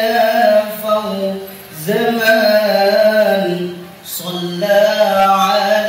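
A man singing a sholawat, devotional praise of the Prophet Muhammad, into a microphone in long drawn-out melodic notes. The singing comes in three phrases, with short breaks about two and four seconds in.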